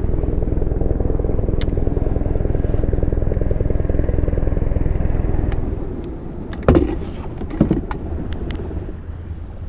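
Spinning reel being cranked steadily, a fast even ticking over a low rumble, for about six seconds as line is wound in. It stops, and two sharp knocks follow about a second apart as the hook and bait are handled.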